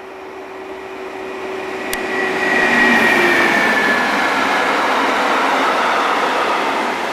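A class 152 electric locomotive hauling a freight train of hopper wagons passes close by. The noise swells as it approaches, a high whine falls in pitch as the locomotive goes past, and the wagons keep up a steady loud rumble as they roll by.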